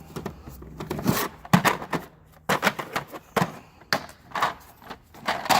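Metal hand tools, sockets among them, clacking and knocking against each other and the drawer as they are handled and moved around in a toolbox, in a string of irregular sharp knocks.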